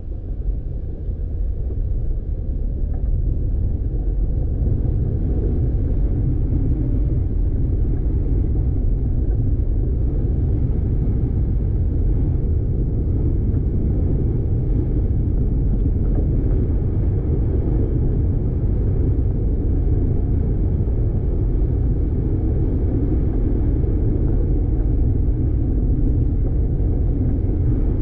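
Steady low rumble of a car driving on a dirt road, tyre and road noise mixed with the engine, building over the first few seconds and then holding steady.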